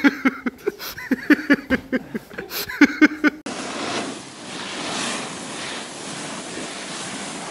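Laughter in short repeated pulses; then, about three and a half seconds in, it cuts to a steady scraping hiss of a snowboarder sliding on his back over snow, swelling a little midway.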